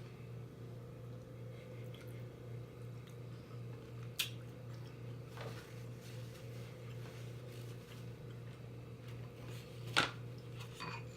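Faint chewing and mouth sounds of someone eating seafood, with a few sharp clicks, the loudest about ten seconds in, over a steady low hum.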